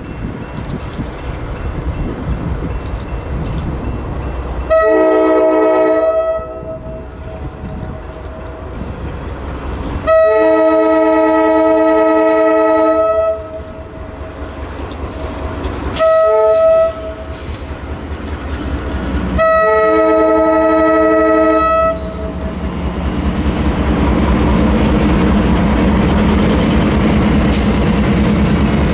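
Nathan K5LA five-chime air horn on a GE C40-8 freight locomotive sounding the grade-crossing signal: long, long, short, long. After the last blast the locomotives' diesel engines and wheels on the rails grow louder as they pass close by.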